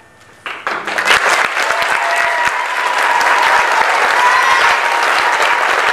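Audience applauding, breaking out suddenly about half a second in and quickly building to a full, steady round of clapping.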